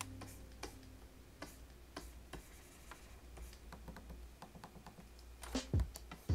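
Scattered light clicks and taps at a digital painting workstation, from keys and stylus, irregular and spaced out, with a few louder knocks near the end over a faint low hum.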